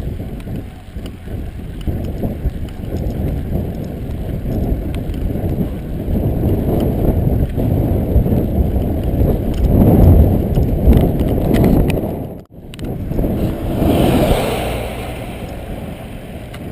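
Wind buffeting the microphone with rumble from a moving bicycle. The noise swells about ten seconds in, cuts out for an instant a little later, then swells again with a brighter hiss.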